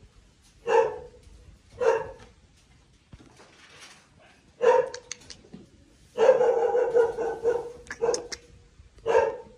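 A dog barking off and on: short single barks a second or more apart, with a quicker run of barks in the middle.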